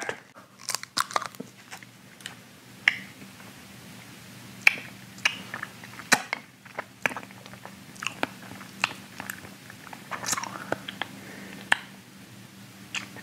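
Mouth sounds of a man eating a Warheads extreme sour hard candy: scattered sharp clicks at irregular intervals as he works the candy in his mouth.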